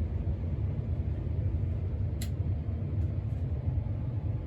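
A steady low background rumble, with a single brief click about two seconds in.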